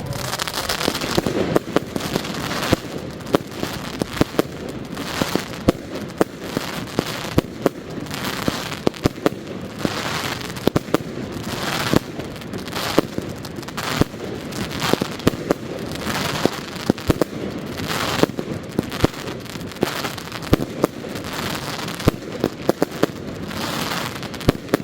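Fireworks display firing without a break: a rapid stream of sharp bangs from bursting shells, several a second, over a constant crackle and hiss.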